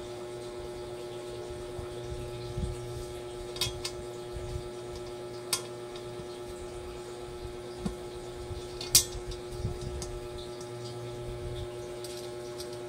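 A few sharp clicks and knocks of a plastic handle being fitted against the rim of a non-stick pan, the loudest about nine seconds in, over a steady hum.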